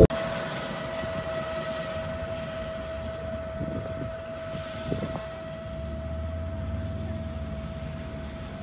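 Yamaha R15 V3 sport motorcycle's single-cylinder engine approaching at a steady speed, heard as a steady drone. About six seconds in, a low pulsing rumble from the engine fades in and keeps building as the bike comes closer.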